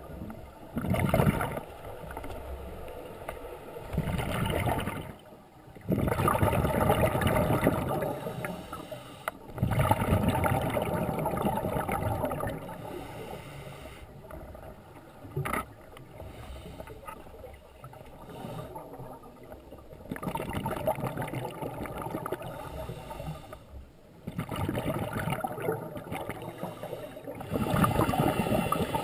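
Scuba diver's breathing underwater through a regulator: long rushing bursts of exhaled bubbles, each lasting a few seconds, with quieter gaps between.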